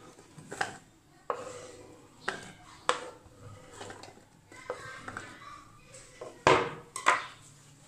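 Diced vegetables being scraped with a knife off a wooden cutting board into the clear plastic bowl of a manual pull-cord food chopper: a string of sharp clicks and knocks of the knife and vegetable pieces against the board and the bowl. The two loudest knocks come near the end.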